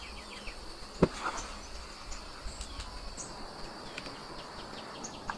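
Forest ambience: insects keeping up a steady high-pitched drone, with scattered short bird chirps over it. A single sharp knock about a second in, and a smaller one near the end.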